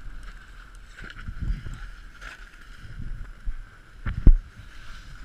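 Muffled wind and rumble on a GoPro's microphone inside its housing, with a few dull knocks about four seconds in as the snowboard and camera are jostled.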